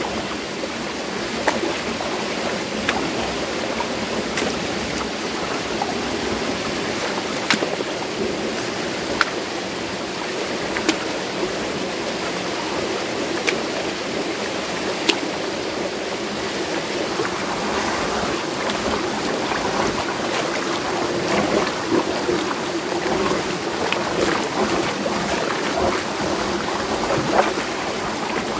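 Mountain stream rushing over rocks, with water running through a concrete channel. In the first half, sharp knocks come every second or two as a wooden stick strikes the concrete; splashing grows busier in the second half.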